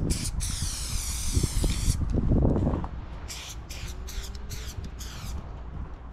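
Aerosol spray paint can hissing: one continuous spray of about two seconds, then a run of short spurts as a train car's side is filled in with paint. Between them comes a brief louder low rumble, over a steady low rumble throughout.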